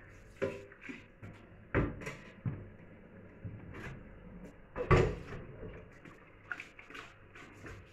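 A stainless steel cooking pot knocking and clattering against a stainless steel sink as it is tipped and handled, a few separate knocks with the loudest about five seconds in and lighter clicks after it. The pot is being emptied and refilled to rinse boiled mutton.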